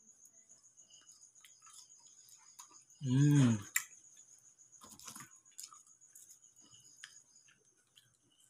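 Crickets chirping steadily in the background, with soft scattered clicks of a man eating french fries. About three seconds in, a short hummed voice sound is the loudest thing.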